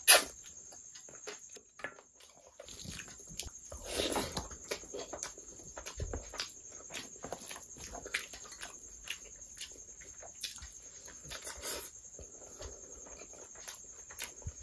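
Close-miked eating sounds of a person eating curry and rice by hand: wet chewing, lip smacks and sticky clicks, with a loud wet suck at the start as curry-covered fingers are sucked clean. A faint steady high-pitched whine lies under it.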